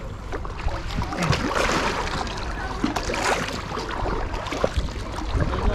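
Kayak paddles dipping and splashing in river water as an inflatable tandem kayak is paddled along, over a steady low rumble.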